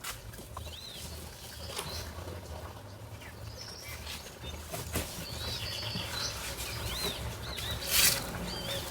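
Young meat chickens peeping: short, high chirps that rise and fall, scattered through, over rustling and clicking from handling, with a louder crackle about eight seconds in. A low steady hum runs underneath.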